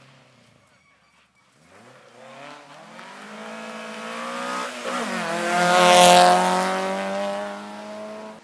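Rally car engine approaching at speed and passing close by, revving higher and higher with a brief drop at a gear change about five seconds in. It is loudest as it goes past about six seconds in, then eases off slightly before cutting off suddenly.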